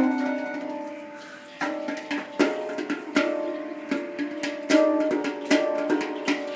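A bowed violin note fades out, and about a second and a half in a Spacedrum (a steel handpan) begins to be struck with the hands. Its notes ring on after each stroke, in a loose, uneven rhythm.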